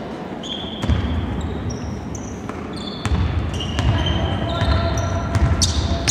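Basketball game sounds on a wooden court: many short, high sneaker squeaks on the hardwood, with the sharp knocks of the ball being dribbled. A low rumble comes in about a second in and grows stronger from about three seconds in.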